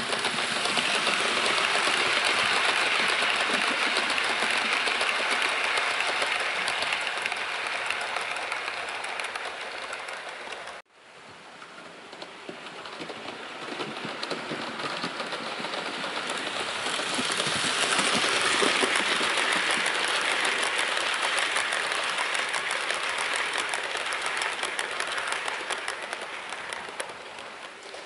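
OO gauge model train, a Hornby LNER W1 locomotive hauling Pullman coaches, running along the layout track: a steady rushing hiss of wheels on rail with the motor running, swelling as it passes close and then fading. The sound cuts off abruptly about eleven seconds in, then builds to a second pass that fades again near the end.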